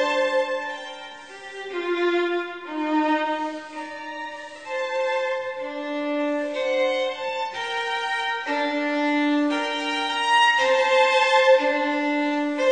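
Background music: a slow melody of long held notes on bowed strings, with several notes sounding together.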